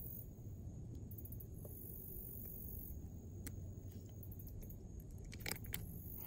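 Faint handling sounds of a small bass being unhooked by hand over a steady low rumble, with a few sharp clicks, the loudest two close together near the end.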